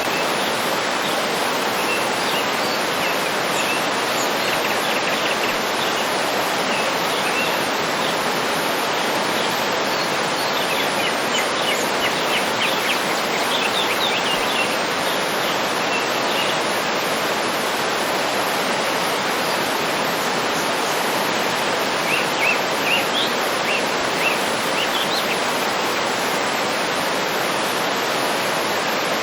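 Waterfall rushing steadily, with birds chirping over it in short bursts, thickest a third of the way in and again near the end.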